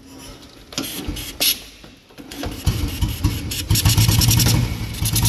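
Royal Enfield Bullet's single-cylinder four-stroke engine being started: a few clicks and knocks, then it catches about two and a half seconds in, runs and revs. The throttle slide in the freshly restored carburetor no longer sticks.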